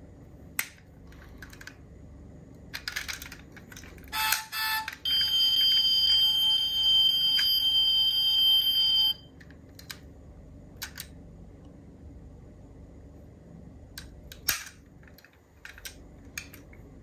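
Scattered small clicks and taps of die-cast toy cars being handled. About five seconds in comes a loud, steady buzzing tone with several fixed pitches, lasting about four seconds and cutting off suddenly.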